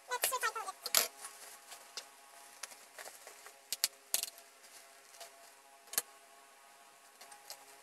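Bubble-wrap packaging being handled and unwrapped, giving scattered sharp crackles and crinkles over a faint steady hum. A short wavering animal call sounds at the very start.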